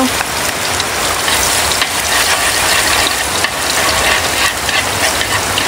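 Minced garlic sizzling in hot annatto-and-satay oil in a nonstick wok, with wooden chopsticks stirring it and clicking rapidly against the pan.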